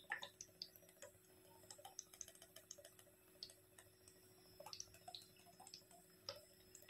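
Near silence, with faint scattered ticks and clicks at irregular times over a faint steady hum.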